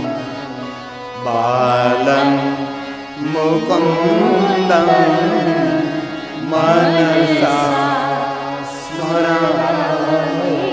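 A man singing a Hindu devotional bhajan in about four long, wavering phrases, with instrumental accompaniment holding a steady drone underneath.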